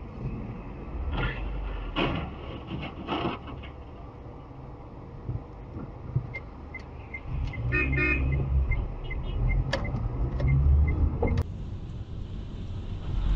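Road and engine noise from a car on a city street. A car horn sounds once, briefly, about eight seconds in. A steady ticking about twice a second runs through the second half.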